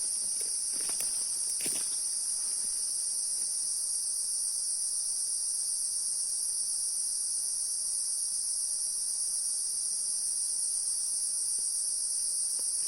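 A steady, high-pitched chorus of insects trilling without a break, with a few faint rustles in the first couple of seconds.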